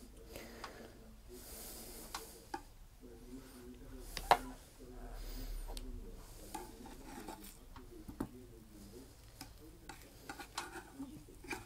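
Beefburgers frying gently in a dry non-stick frying pan with no oil, giving faint scattered crackles and pops. Near the end a plastic spatula scrapes and taps against the pan as a burger is pushed.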